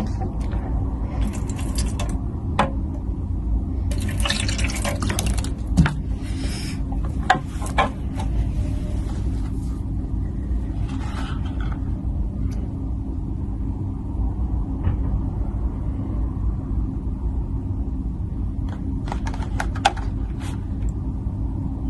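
Water being poured into a humidifier's plastic water tank in several pours, over a steady low rumble.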